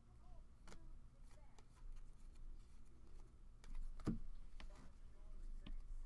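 Trading cards being handled and flipped through by hand: light scattered clicks and soft rustles of card stock, with a duller knock about four seconds in.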